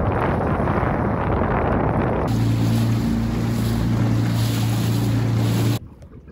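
Wind buffeting the microphone over water noise aboard a small aluminium boat. About two seconds in, a steady low hum from the boat's outboard motor running takes over. Near the end everything drops away abruptly to a much quieter scene.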